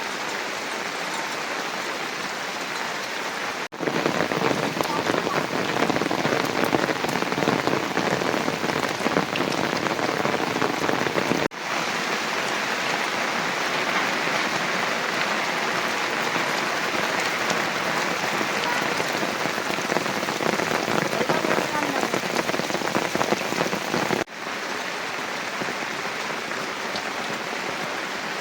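Heavy rain falling steadily, a dense hiss of drops. It changes abruptly three times, at about 4, 11.5 and 24 seconds; the stretch from about 4 to 11.5 seconds is louder and more pattering.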